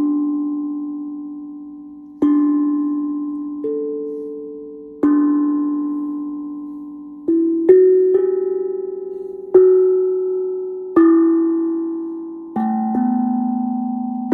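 Steel tongue drum struck with mallets, playing a slow melody one note at a time. Each note rings out and fades before the next, with two quick pairs of notes partway through and near the end.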